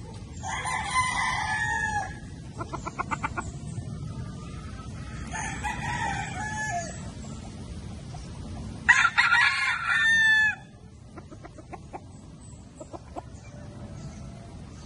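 Gamefowl roosters crowing three times, each crow about one and a half seconds long, the third the loudest, with short runs of quick clucks between the crows.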